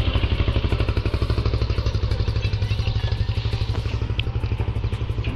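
Yamaha FZ-S motorcycle's single-cylinder engine running with an even pulsing beat as the bike pulls away, a little fainter near the end.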